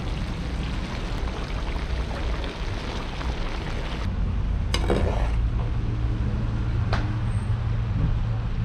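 Rice and carrots for plov sizzling in oil as a metal skimmer stirs them in a large kazan. About four seconds in, the sizzling hiss drops out and a steady low rumble takes over, with a couple of short knocks.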